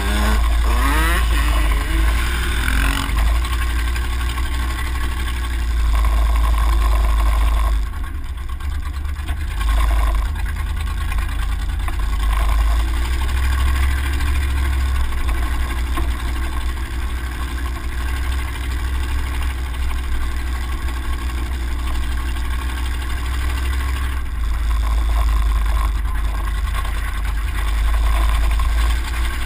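An off-road vehicle drives along a dirt trail, heard from a camera mounted low on its side: its engine runs under a heavy wind rumble on the microphone, rising and falling with the throttle. In the first few seconds a dirt bike rides close alongside, its engine revving up in pitch.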